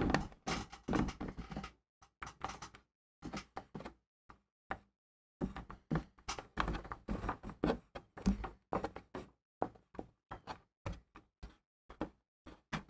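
Irregular knocks, taps and rustles of hands handling a red-and-black two-conductor cable against the camper's wooden framing.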